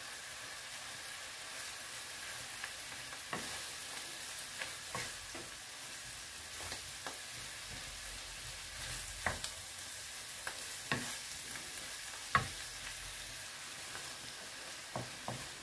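Chopped peppers, onion and mushrooms frying in olive oil in a nonstick frying pan, a steady sizzle, with the scrape and knock of a wooden spatula stirring them now and then.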